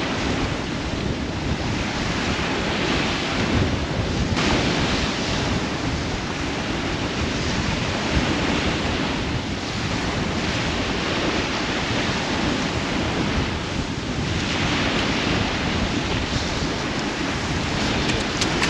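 Waves washing onto the shore, swelling and easing every few seconds, with wind buffeting the microphone.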